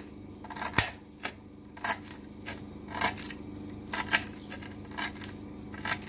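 Kitchen knife finely chopping fresh coriander leaves on a plate: a run of short, sharp taps as the blade meets the plate, unevenly spaced at roughly two a second. A faint steady low hum lies underneath.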